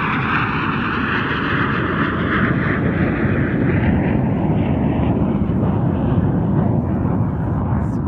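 Jet aircraft flying over, a loud steady noise with a slowly falling whine that fades over the first few seconds, leaving a lower rumble.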